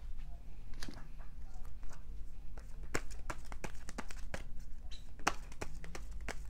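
A deck of tarot cards being shuffled by hand: irregular sharp clicks and flicks of cards against each other, coming more often from about halfway.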